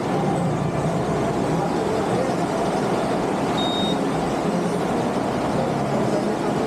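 Motor scooter on the move: steady engine hum mixed with a continuous rush of wind and road noise. A short, high beep sounds about halfway through.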